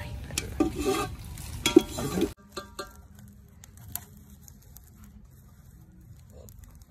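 Whole spices (bay leaf and cinnamon) sizzling in hot oil and ghee in a large pot as they are stirred, with clicks and knocks against the pot. About two seconds in the sound cuts off abruptly and goes on much quieter, with only a few faint clicks.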